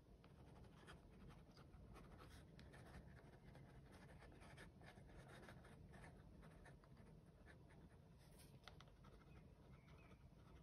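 Pen scratching on paper in many short, quick sketching strokes, faint over a low room hum.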